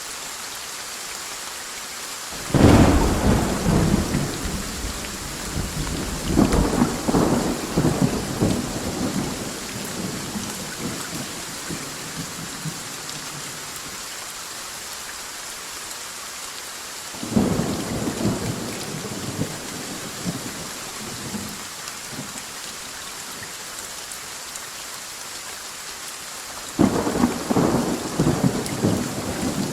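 Steady rain with three rolls of thunder: one breaks suddenly a couple of seconds in and rumbles on with a second swell for several seconds, another comes just past the middle, and a third starts near the end.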